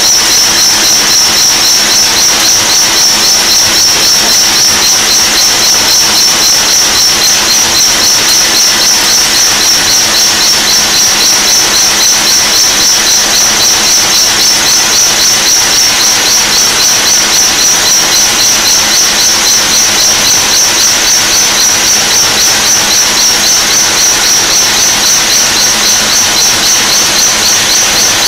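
Burgsmüller L5.4 thread-whirling head cutting a steel screw element: a loud, steady high-pitched whine over a noisy hiss of metal cutting, pulsing fast and evenly.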